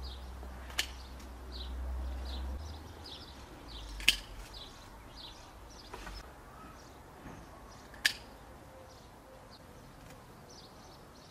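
Small birds chirping in quick, repeated short notes, with three sharp snaps about a second in, at about four seconds and at about eight seconds. A low rumble runs through the first two and a half seconds.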